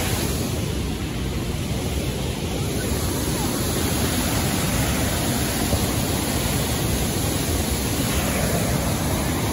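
Waterfall rushing, a steady unbroken noise of falling water.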